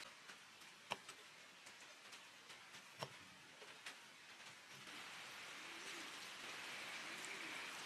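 Rain falling, a steady hiss that is faint at first and grows heavier from about five seconds in, with two sharp clicks about one and three seconds in.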